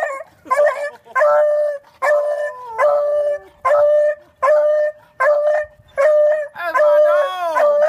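Beagle baying in excited greeting: a quick run of about nine short howls, each held on one pitch, with brief breaths between.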